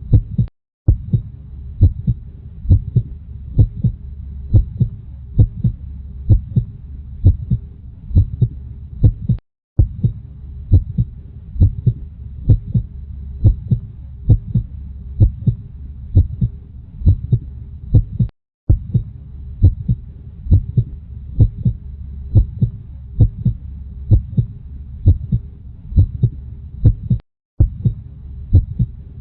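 Heartbeat sound: steady, regular beats over a low rumble. It cuts out briefly for a moment about every nine seconds.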